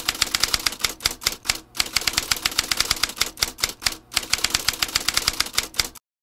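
Typewriter sound effect: rapid, uneven key clicks, about seven a second, that stop abruptly near the end, typical of an on-screen caption typing out letter by letter.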